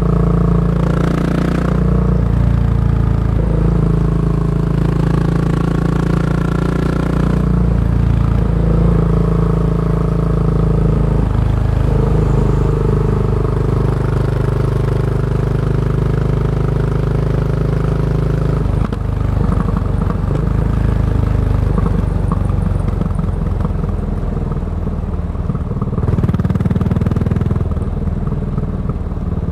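Yamaha SR400's air-cooled single-cylinder four-stroke engine running through a Goods tapered cone slip-on muffler while riding, a steady exhaust note that steps in pitch a few times. About two-thirds through the note turns rougher and less even, then steadies again near the end.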